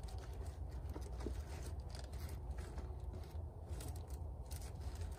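Short scraping and rustling sounds of fire-lighting materials being handled, a few sharper scrapes spread through, over a steady low rumble.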